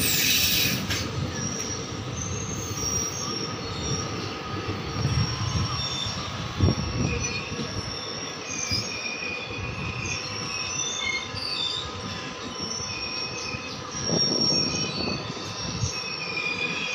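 Steel wheels of a moving passenger train squealing on the rails: several high-pitched squeals come and go over the rumble of the coaches, heard from the coach's open doorway. A sharp knock stands out about seven seconds in.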